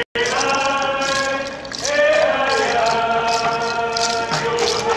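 Group of voices singing a Northwest Coast First Nations dance song in long held notes, moving to a new note about two seconds in, over a steady percussion beat of about three strokes a second. The sound cuts out for an instant just after the start.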